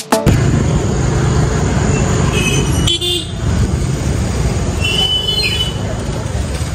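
Road traffic noise, a steady low rumble, with vehicle horns sounding briefly about two and a half seconds in and again around five seconds.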